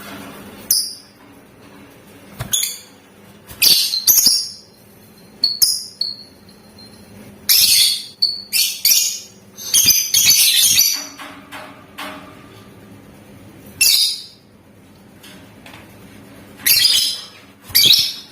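Lovebird calling in short bursts of shrill, chattering chirps, about a dozen separate bursts with brief pauses between, the densest run about halfway through.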